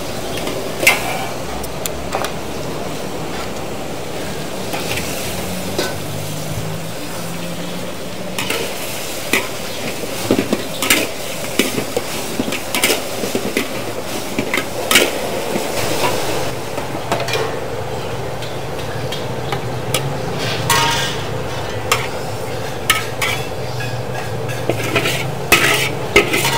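Food sizzling in a hot wok as it is stir-fried, with frequent sharp clanks of a metal spatula against the pan.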